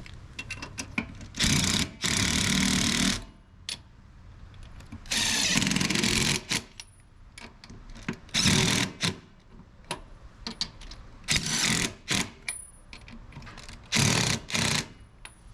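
Cordless DeWalt drill running lug nuts onto a wheel stud in five separate bursts, the first two the longest at about a second and a half each, with short pauses between them as it moves from nut to nut.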